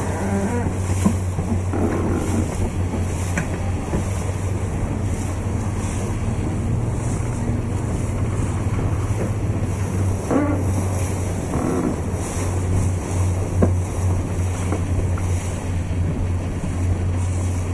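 Wind rushing over the microphone and water splashing, over a steady low engine hum.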